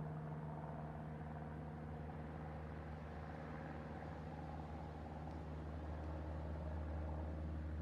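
Cessna 172 Skyhawk light aircraft's piston engine and propeller droning steadily overhead, fairly faint, with an even low hum that holds its pitch and grows slightly louder near the end.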